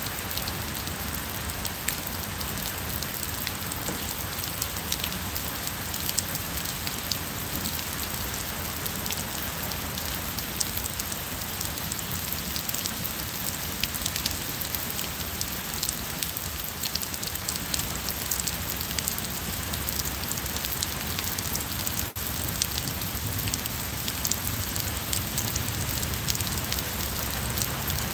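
Steady rain falling on wet paving and garden plants: an even hiss with many small, sharp drop ticks scattered through it.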